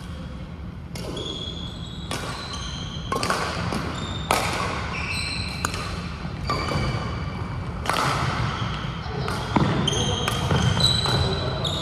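Badminton play on a sports-hall court: sharp racket strikes on shuttlecocks, with many short high squeaks of court shoes on the floor and voices in the background.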